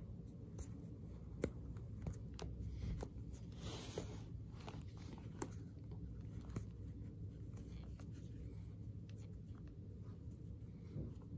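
Faint rustling and small irregular clicks of fingers picking at a knot in a flat fabric shoelace on a running shoe, with a longer scratchy rub of lace on lace about four seconds in, over a low steady hum.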